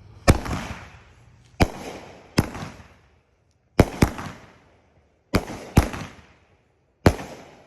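A 200-gram, 12-shot consumer fireworks cake firing: sharp bangs about once a second, some in quick pairs, each fading off in a short rumble.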